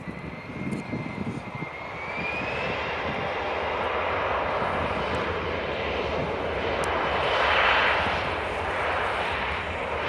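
Jet engines of a CRJ regional jet rolling down the runway: a thin whine rising in pitch over the first few seconds, then a broad rush of jet noise that swells to its loudest about eight seconds in.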